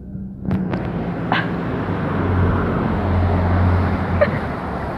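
A car passing close by: engine hum and tyre noise build up, peak a little past the middle, then ease off.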